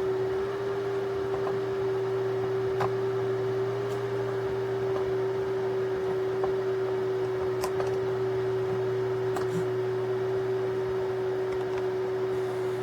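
A steady electrical hum at one constant pitch, with a few faint clicks scattered through it.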